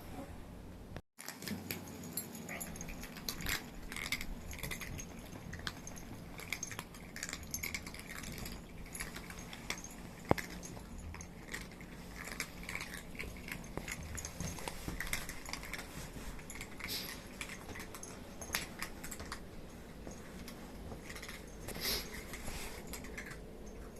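Kittens moving about, making scattered light clicks, taps and rustles.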